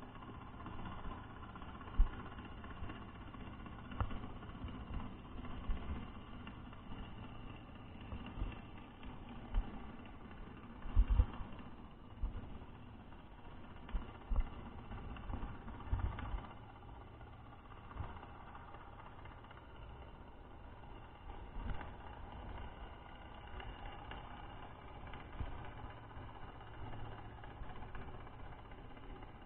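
Underwater ambience picked up by a submerged camera: a steady low drone, broken by irregular dull thumps and knocks, the loudest a short cluster about eleven seconds in.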